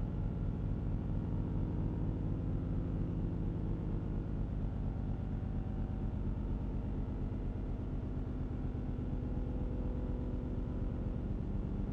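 Four-tone siren sounding a steady, unwavering chord of several low tones, at a constant level.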